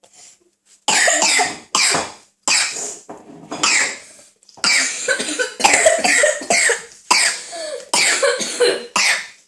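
A person coughing and spluttering in a fit: about ten sharp coughs in quick succession.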